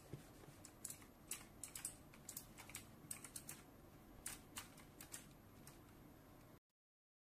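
Faint computer mouse buttons clicking in an irregular pattern, a few clicks a second at times, over a low hiss.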